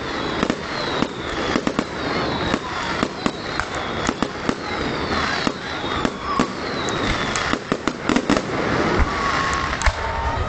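Fireworks display: a rapid string of bangs and crackling from bursting aerial shells over a steady hiss, with several whistles sliding down in pitch.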